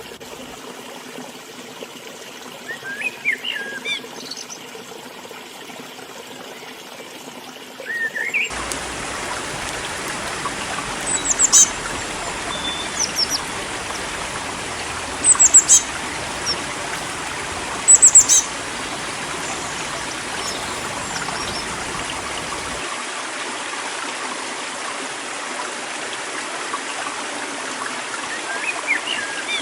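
River water running steadily, with small birds chirping in short, high calls that sweep downward. About eight seconds in, the water suddenly becomes louder and fuller, and the loudest chirps come in the middle.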